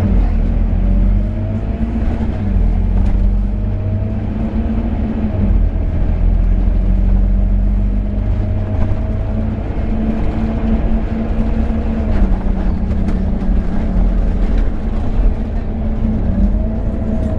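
Scania N270UD double-decker bus engine and ZF Ecomat automatic gearbox under way, heard from inside the passenger saloon: a deep steady rumble with a whining note that rises and falls several times as the bus accelerates and changes gear.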